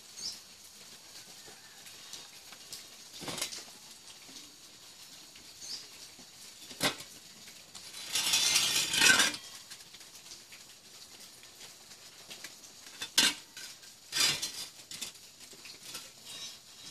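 Scattered metallic clinks and knocks from handled metal parts, with a longer, louder scraping rattle about eight seconds in.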